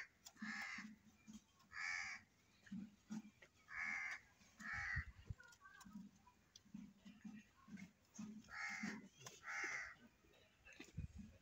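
Crows cawing: about six short, harsh caws, several in quick pairs. Soft low blips sound between them.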